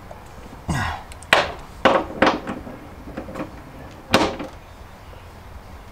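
Hand wrench and bolts knocking against a metal platform bracket as it is tightened down in a Jeep's cargo floor: about five separate knocks and clunks.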